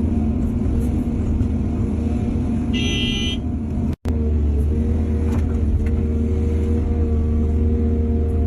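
Heavy diesel earthmoving machinery running steadily under load. A brief high-pitched tone sounds about three seconds in, and the sound cuts out for an instant about four seconds in.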